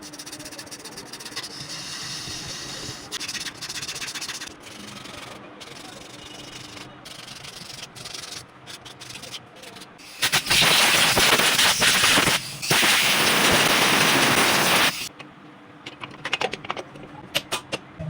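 Abrasive rubbing and scraping: scratchy strokes with small clicks, then about five seconds of loud, harsh rasping with one short break, fading back to scattered clicks near the end.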